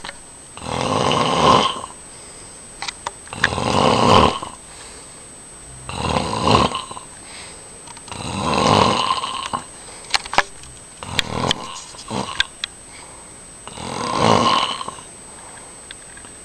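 Snoring: six loud snores, about one every two and a half seconds, with a few short sharp clicks between them near the middle.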